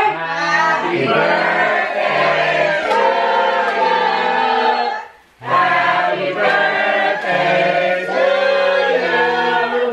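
Several voices singing together in long held chords, like a choir, with a short break about halfway through.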